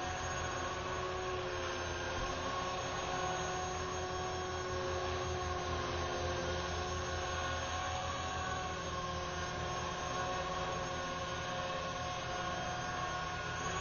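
Electric RC helicopter (Align T-Rex 450 SE V2) in flight: a steady whine from its motor and drive gears over a fast low chop from the spinning rotor blades, the pitch wavering only slightly.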